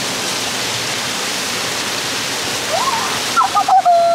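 Steady rush of a waterfall. A high-pitched voice calls out near the end.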